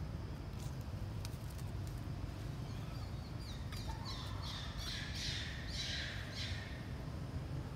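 Baby macaque giving a run of about seven high, squeaky calls, each falling in pitch, starting about three seconds in, over a steady low rumble.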